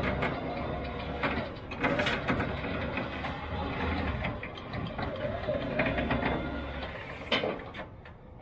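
Electric trailer winch running under load, pulling a pickup up the trailer deck: a motor hum with a wavering whine and occasional clicks, stopping about seven seconds in.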